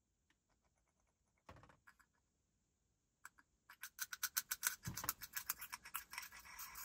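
Rapid crackling and popping from a leaking Moti disposable vape firing on its own, typical of e-liquid spitting on an overheating coil. It starts about four seconds in, after a near-silent stretch with a few soft clicks.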